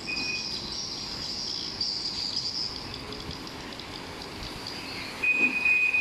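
Aftermarket keyless car alarm sounding a short high beep, then a louder, longer beep at the same pitch near the end, over a steady high hiss.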